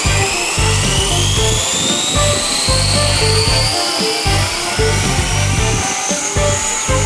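JR Forza 450 radio-controlled helicopter's motor and rotor whining and rising steadily in pitch as it spools up and lifts off. Background music with a beat plays under it.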